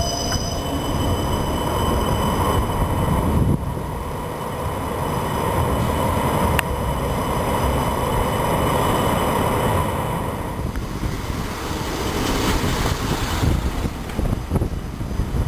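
Siemens Combino Supra tram running along the track with a steady rolling noise, and a single click about six and a half seconds in. Gusts of wind on the microphone come in near the end as it runs in the open.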